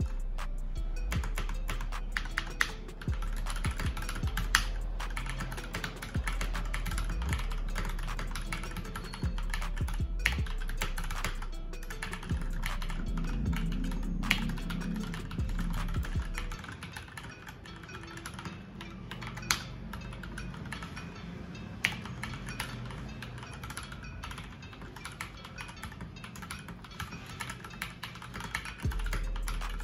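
Rapid typing on an Akko Midnight 3108 R2 full-size mechanical keyboard with Akko Pink V2 linear switches: a continuous patter of keystrokes, some keys struck harder than others, over background music.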